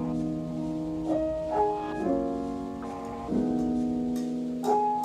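Background music: a soft piano playing held chords that change about once a second.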